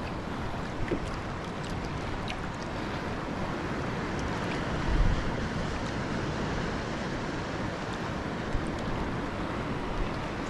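Small waves lapping against a kayak's hull with light wind on the microphone: a steady wash of noise, with a short low knock about halfway through.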